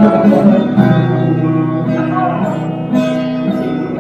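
Guitar being played: plucked notes and chords ringing and changing every second or so.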